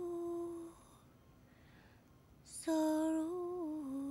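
A woman singing softly and unaccompanied in a slow, lullaby-like way. A held note fades out under a second in; a second long phrase starts near three seconds and wavers up, then steps down in pitch.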